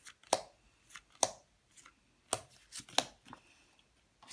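Trading cards being flicked through and laid down onto piles: a run of sharp, irregular snaps and slaps, card against card.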